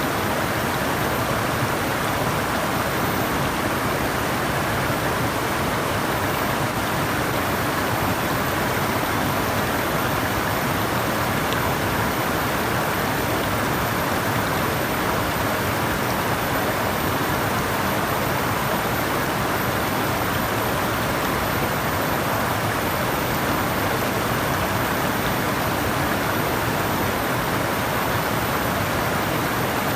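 Flowing water rushing steadily, an even hiss-like wash with no breaks or changes.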